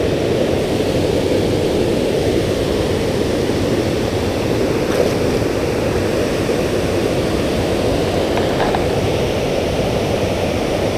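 Steady rush of water pouring over a low dam spillway, an even, unbroken noise.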